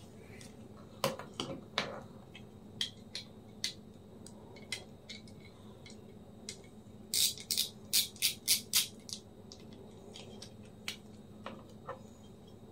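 Small sharp clicks and ticks of a screwdriver and small metal and plastic parts as the screws holding a laptop's cooling fan are taken out, with a quick run of about eight clicks a little past the middle.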